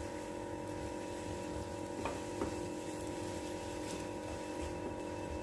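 Silicone spatula stirring and scraping thick ground lentil paste being roasted in ghee in a nonstick frying pan, with two soft knocks about two seconds in, over a steady background hum.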